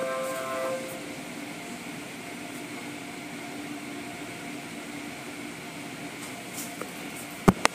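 Automatic car wash heard from inside the car: a steady rushing of water spray and wash equipment against the car's body and glass. Two sharp knocks near the end.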